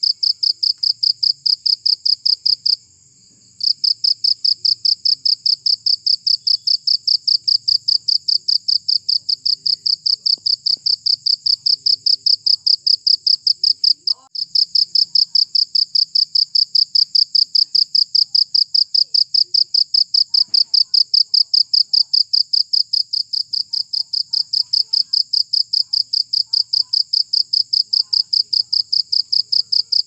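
A cricket chirping loudly in a fast, even run of pulses. It stops for about a second near the start and dips briefly about halfway through.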